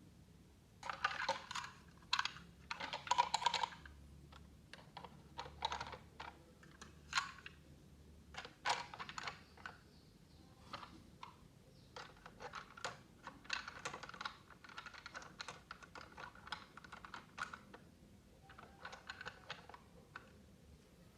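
Hard plastic toy pieces being handled, making irregular clicks and short clattering rattles.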